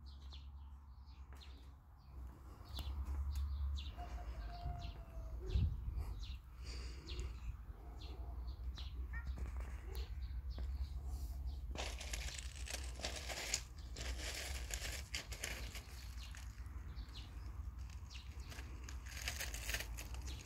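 Wind buffeting the phone's microphone: a steady low rumble, with stretches of rushing, rustling noise in the second half.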